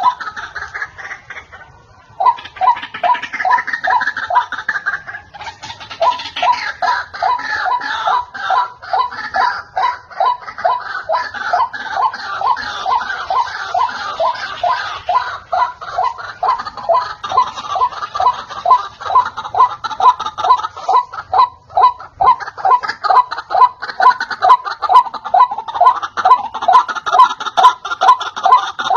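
White-breasted waterhen calling: a steady run of repeated harsh notes, two or three a second, with faster chattering over them and a brief break about two seconds in.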